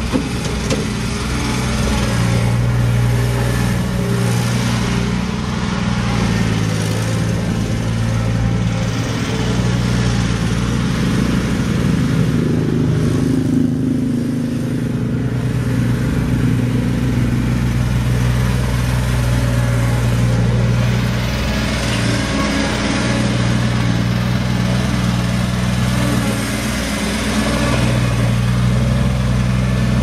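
1988 Case 1835C skid steer's three-cylinder diesel engine running steadily as the machine drives and maneuvers, with its engine pitch briefly rising and falling about halfway through.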